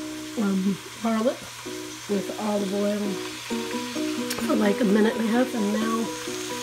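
Background music with a stepping melody over purple cabbage sizzling in hot oil in a stainless steel stockpot.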